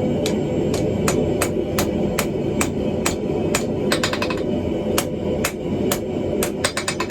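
Hammer blows on steel at an anvil while forging a hammer eye drift: sharp, ringing strikes at about two to three a second, broken twice by quick runs of lighter taps, over a steady low roar.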